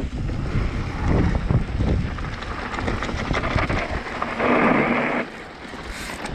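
Wind buffeting the camera microphone over the rumble and rattle of mountain-bike tyres rolling on a dirt and gravel trail. A harsh hiss about four and a half seconds in as the bike brakes, then the noise drops as it slows.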